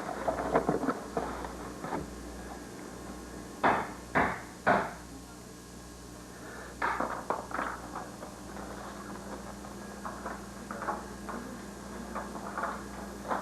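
Three loud knocks in quick succession, about half a second apart, around four seconds in, followed a few seconds later by a run of quieter knocks and clatter.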